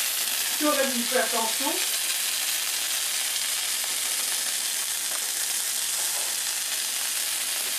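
Swordfish steaks sizzling steadily on a hot ridged grill pan, a constant high frying hiss.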